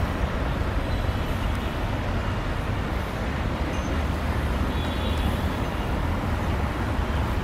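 Steady low rumble of a passing diesel-hauled passenger train.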